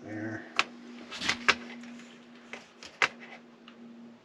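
A handful of sharp clicks and taps, the loudest about half a second, a second and a half, and three seconds in, over a steady low hum.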